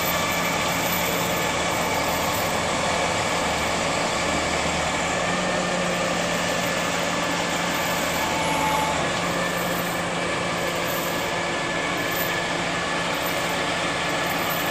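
Mobile crane's diesel engine running steadily, an even hum with a few constant tones.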